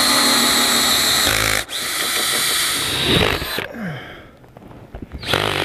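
Cordless drill driving a hole saw through asphalt roof shingles and sheathing, running steadily with a whine, pausing briefly about a second and a half in, then cutting again until it stops about three and a half seconds in.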